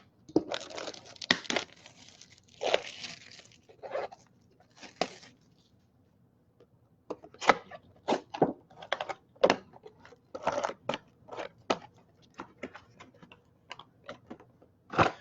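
Hands handling trading cards and their packaging: irregular crinkling, tearing and scraping of plastic and card, a short pause about six seconds in, then many quick clicks and rustles.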